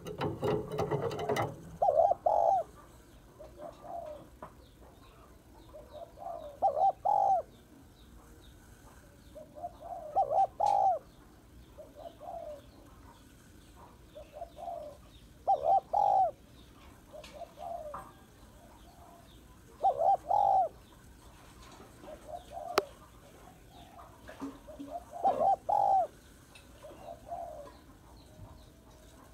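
Female spotted dove cooing: short phrases repeated every few seconds. There is a brief loud burst of noise at the very start.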